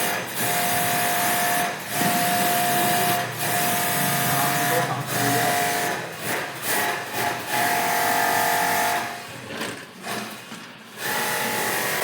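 A small electric motor-driven tool runs with a steady whine over a loud rushing hiss, cutting off briefly and starting again several times.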